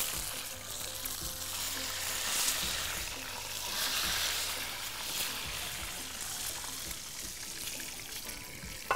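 Whole peeled eggs frying in a pan of hot oil: a steady sizzle, louder for a moment as more eggs are dropped in.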